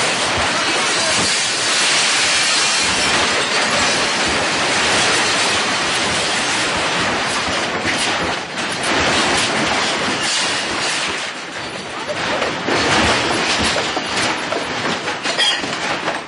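A house and its contents rattling and clattering in violent earthquake shaking: a loud, continuous jangling clatter of shelves, windows and objects, with repeated knocks throughout.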